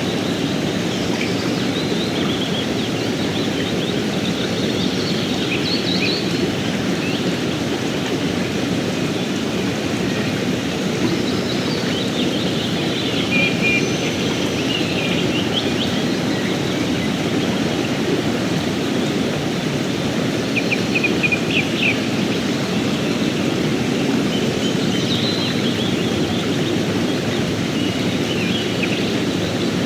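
Fast mountain river rushing over rocks: a steady, even rush of water. Short bird chirps come through now and then.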